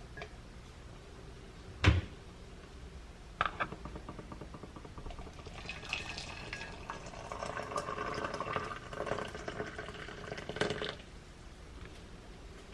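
A sharp knock of crockery, then a few clicks, then hot water poured from an electric kettle into a mug for about five seconds.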